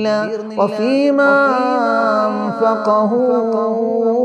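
A man's voice chanting a melodic recitation in long, drawn-out notes that bend and waver slowly, with no speech breaks.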